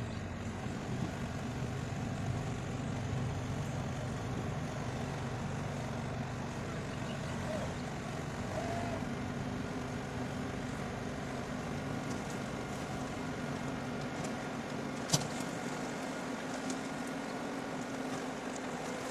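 Heavy diesel machinery engine running steadily, with one sharp clank about fifteen seconds in.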